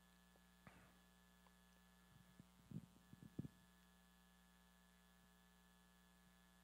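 Near silence: a steady electrical mains hum, with a few faint, short handling sounds around the middle.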